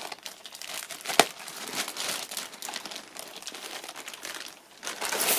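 Clear plastic wrap crinkling and rustling as it is pulled off a laptop, with one sharp click about a second in and louder crinkling near the end.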